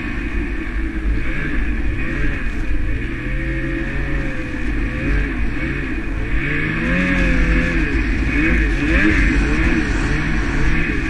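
Snowmobile engine revving up and down as it rides through deep snow, its pitch rising and falling in repeated swells over a steady low rumble.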